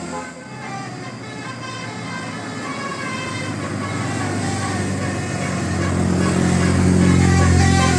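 Large bus's engine getting steadily louder, as a bus draws near, loudest in the last two seconds.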